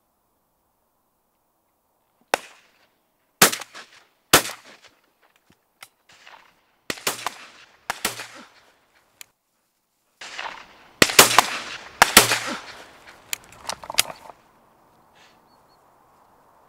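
Several shotguns firing at flying ducks: more than a dozen shots in quick clusters, some close and loud with a ringing echo, others fainter and farther off. The shooting stops about fourteen seconds in.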